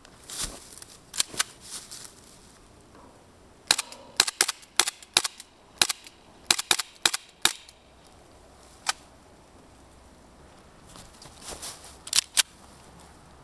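WA Colt M1911A1 gas blowback airsoft pistol firing, each shot a sharp crack as the gas cycles the slide. It fires a few shots near the start, a quick string of about a dozen after a pause, and a few more near the end.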